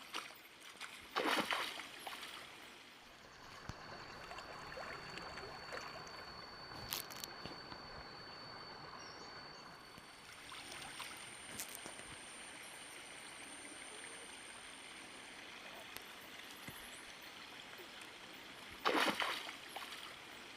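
Faint water sloshing and gurgling, with a brief louder burst about a second in and another near the end, and a thin steady high-pitched tone for several seconds in the middle.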